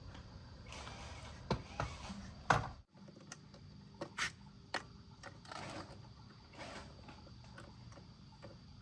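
Scattered clicks, knocks and short rubbing noises of parts being handled, over a steady low background. The background changes abruptly about three seconds in.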